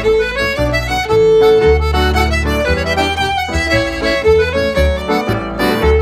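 Instrumental background music: a melody of changing notes over a low bass line.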